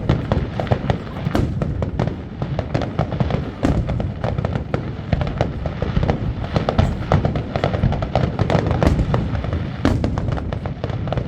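Fireworks display going off in quick succession: a dense, continuous run of bangs and crackles over deep booms.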